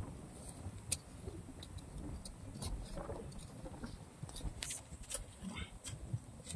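Small hand trowel digging and scraping in soil, a scatter of short scrapes and clicks over a steady low rumble.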